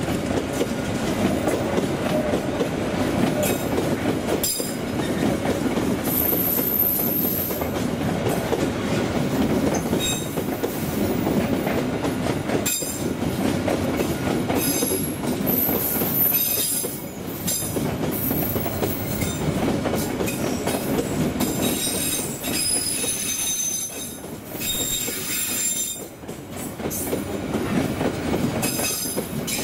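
A train running past on the rails: a steady rolling rumble with a few sharp clicks of wheels over rail joints, and high-pitched squealing from the wheels coming and going in the second half.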